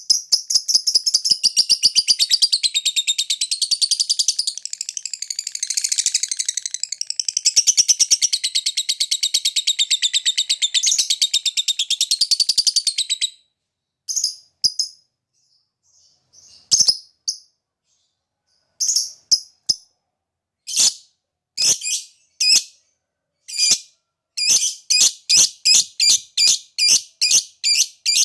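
Lovebird giving its long 'ngekek' chatter, a loud, rapid, high-pitched trill held for about thirteen seconds that cuts off suddenly. After a pause come scattered short chirps, then near the end a steady 'ngetik' run of sharp, typing-like chirps at about two to three a second.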